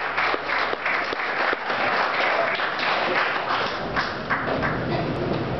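Audience applauding, dense clapping.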